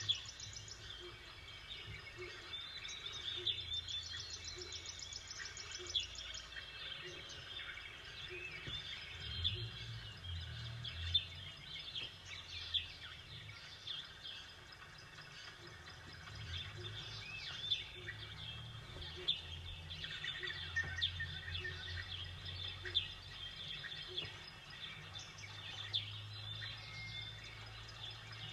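Small birds chirping and calling, many short high chirps scattered throughout, over a low steady hum.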